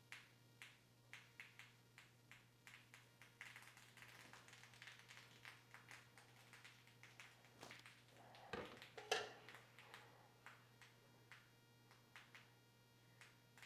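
Faint dripping: drops of overflowing coffee and milk foam falling from the mug, ticking down about twice a second, with a brief louder rustle about nine seconds in.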